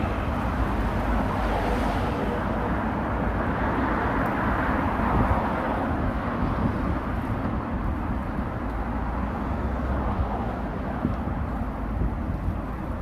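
Steady rumble of street traffic with a low, even background hum, no single event standing out.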